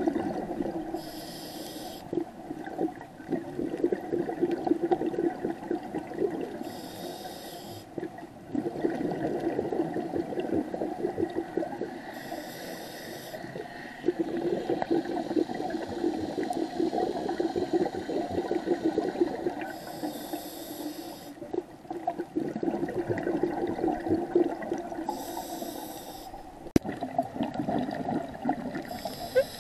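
Scuba diver breathing through a regulator underwater: a short hiss of each inhalation about every five to seven seconds, six in all, with the rumbling bubbles of the exhaled air in between.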